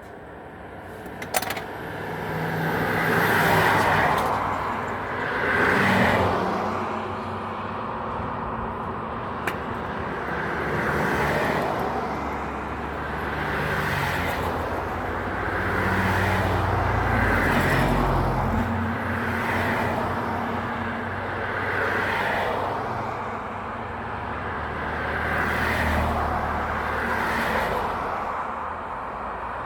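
Road traffic passing one vehicle after another in repeated swells, over the steady low running of an engine, with a sharp click about a second and a half in.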